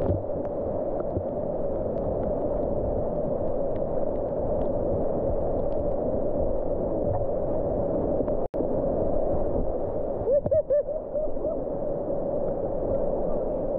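Whitewater rapids of a flooded creek rushing and splashing close around a kayak, heard muffled and steady, with water washing over the camera. The sound cuts out for an instant a little past halfway, and a short bubbling gurgle follows about ten seconds in.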